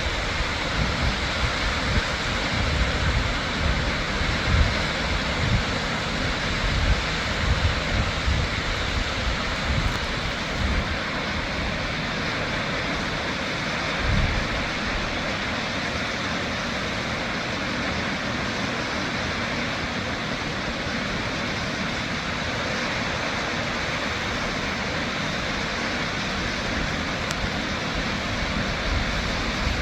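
Shoshone Falls waterfall rushing in a steady, loud wash of falling water. Low gusts of wind buffet the microphone through the first third and once about halfway.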